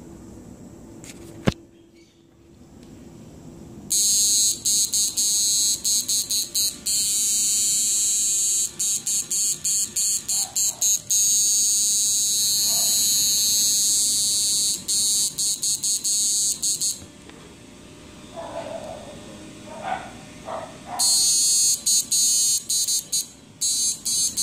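Homemade two-MOSFET PDC converter driven by an SG3525 PWM module, running under a lamp load and giving a loud, high-pitched buzz that starts about four seconds in and stutters with many brief dropouts, fades for a few seconds, then comes back near the end. A single sharp click comes about a second and a half in.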